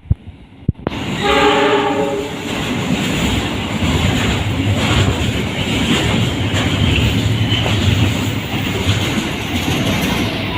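Train horn sounding one short blast, then a train passing close by with a steady rumble of wheels and clatter over the rail joints.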